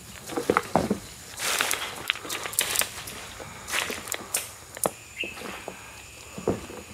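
Irregular rustling and crackling of dry leaves and twigs, with sharp snaps and a few soft thuds. A single bird chirp comes about five seconds in.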